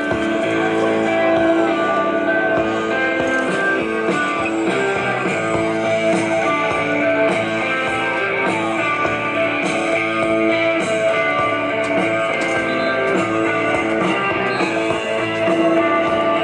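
Loud recorded music with a steady beat.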